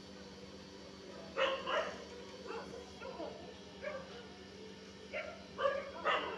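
A dog barking repeatedly at night, short barks in small groups with the loudest about a second and a half in and near the end.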